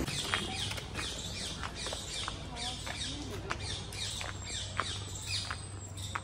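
Birds calling in the trees: a rapid series of high, falling notes, a few each second, with short sharp taps among them.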